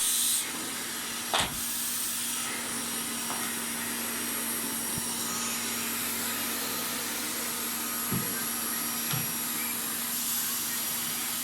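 Electric stick vacuum running steadily with a constant hum, with a brief knock about a second and a half in and a couple of lighter knocks later.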